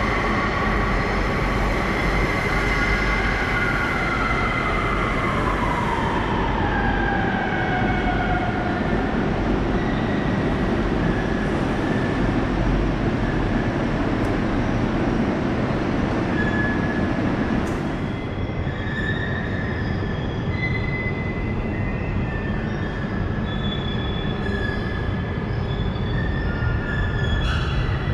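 Loud, steady running noise of a vehicle or machinery, with a whine that falls in pitch over several seconds near the start and fainter high tones coming and going.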